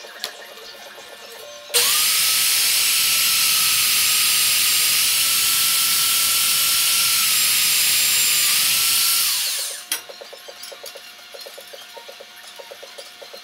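Magnetic-base drill press motor running and cutting a hole in steel plate: a loud steady whine that starts abruptly about two seconds in and winds down after about eight seconds, followed by a click.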